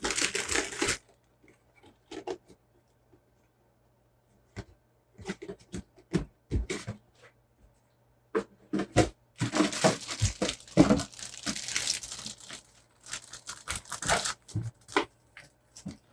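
Plastic packaging crinkling and tearing as RC kit parts are unwrapped, in irregular bursts. A short burst at the start, a few taps about five seconds in, then dense rustling through most of the second half.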